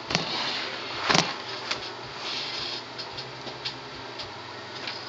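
Handling noise from a plastic laptop being moved and set down on a desk: scraping and rustling with a series of light plastic clicks and knocks, the loudest about a second in.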